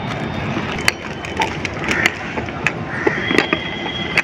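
Glass jars and plastic containers clinking and knocking against each other as they are packed by hand into a scooter's under-seat storage compartment: a handful of sharp clinks spread out, over a steady background noise.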